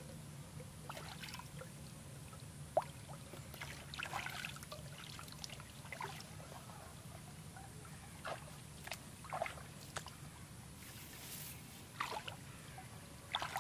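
Small irregular splashes and trickles of shallow muddy water as hands work around bamboo eel traps in a ditch, with one sharp click about three seconds in, over a faint steady low hum.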